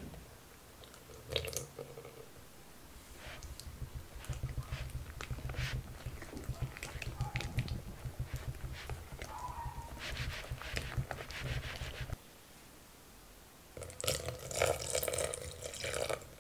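Silicone whisk beating thick batter in a glass bowl: quick, wet, squishy strokes that stop about twelve seconds in. Near the end, milk is poured into the bowl with a splashy liquid sound.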